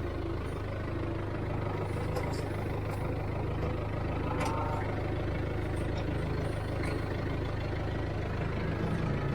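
A vehicle engine running steadily at idle with an even low hum.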